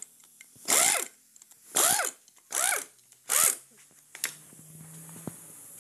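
Pneumatic wrench spinning out gearbox casing bolts in four short bursts, each with a hiss of air and a pitch that rises and falls as the motor speeds up and slows. A single click and a faint low hum follow near the end.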